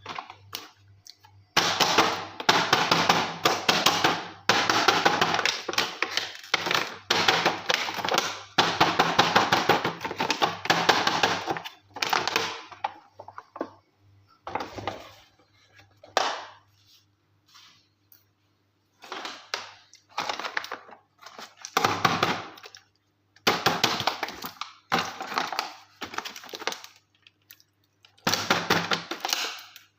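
Packaging being handled and opened during an unboxing: plastic wrap crackling and crinkling in several bursts of a few seconds each, with short pauses between them.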